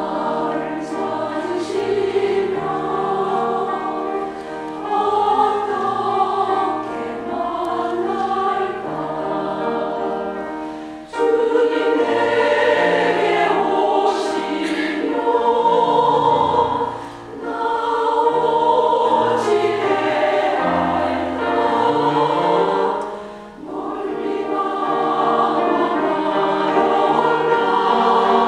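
Church choir singing a sacred song, held notes in phrases; the singing comes in louder about eleven seconds in, with two brief breaks between phrases later on.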